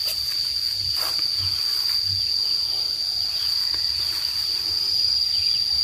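Insects singing a steady, unbroken high-pitched drone, the field's insect chorus, with a few soft low thuds beneath it.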